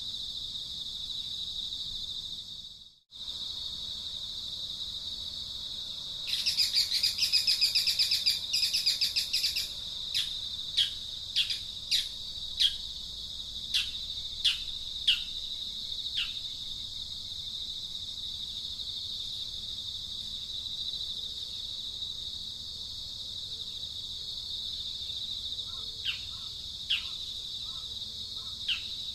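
Steady high-pitched insect drone, with a louder fast-pulsing insect buzz from about six to ten seconds in. A bird then gives a string of short, downward-sliding chirps, and a few more near the end. The sound cuts out for a moment about three seconds in.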